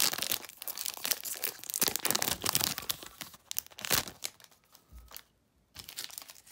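Foil wrapper of a Magic: The Gathering Kaldheim booster pack being torn open and crinkled by hand, a dense crackling rustle that thins out after about four seconds.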